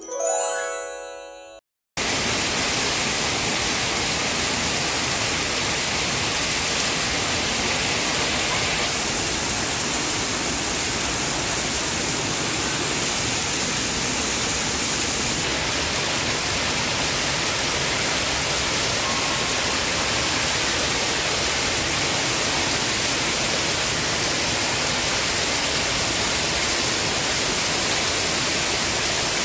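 A short musical logo sting that fades out, then from about two seconds in, steady heavy rain pouring down through tree foliage.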